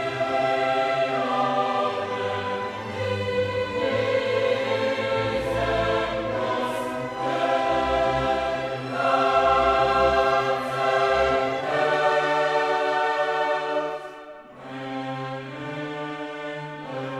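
Background music: a choir singing long held chords over an orchestra, thinning out briefly about fourteen seconds in.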